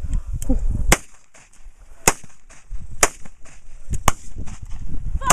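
Handgun fired five times, about one shot a second, each a sharp crack.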